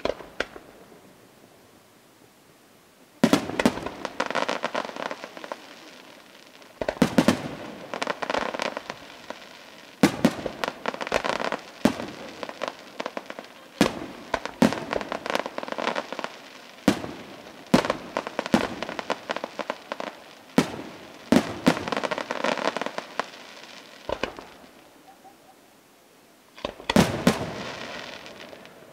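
Aerial firework shells bursting in a series of sharp bangs. They come in volleys every few seconds, and each volley trails off in a rapid run of smaller pops. After a short lull at the start, the first volley comes about three seconds in.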